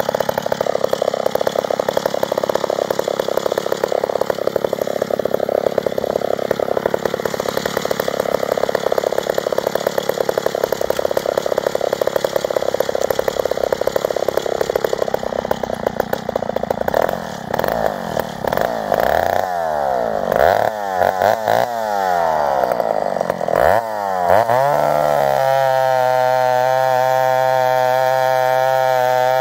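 McCulloch Super 55 two-stroke chainsaw engine (83 cc, rebuilt and ported) running hard, with the .404 chain cutting through a grand fir log. After about 17 seconds its pitch swings up and down for several seconds, then settles into a steady, even note for the last few seconds.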